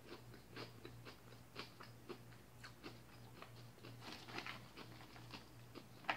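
Faint chewing and small irregular crunching clicks of someone eating a salad of mixed greens with a plastic utensil from a plastic container, over a low steady hum.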